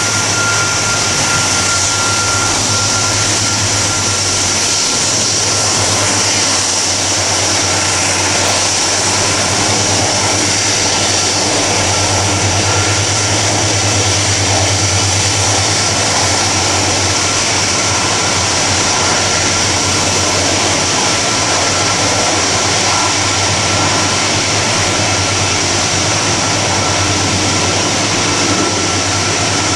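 Boeing 747-400 freighter's four jet engines at taxi power: a steady whine and hiss over a low rumble, with a thin whistling tone that slowly sinks a little in pitch.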